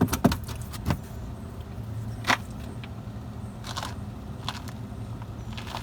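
Hand tools clinking and tapping against metal, a few separate clinks with gaps between them, as a socket wrench is fitted to the brake caliper bracket bolts. A steady low hum runs underneath.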